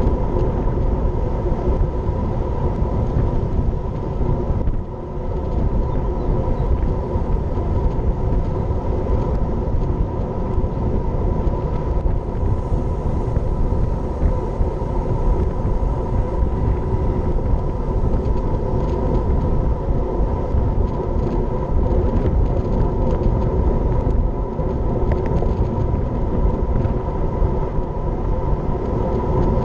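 Steady wind rush and road noise on a camera mounted on a moving road bike, with tyres rolling on asphalt. The noise dips briefly about five seconds in.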